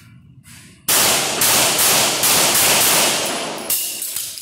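Rapid string of handgun shots fired in an indoor range with concrete walls, starting about a second in at roughly two to three shots a second, each report ringing off the walls; the string stops just before the end.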